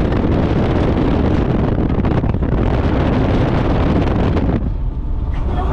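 Steady, loud rumble of wind and road noise from a moving car, with wind buffeting the microphone. The hiss dulls briefly about three-quarters of the way through.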